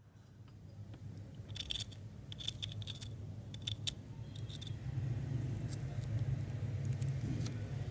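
The crispy coating on fried chicken crackles as a fork presses into it, giving a few short, dry crackles in the first half of the clip. A steady low hum runs underneath.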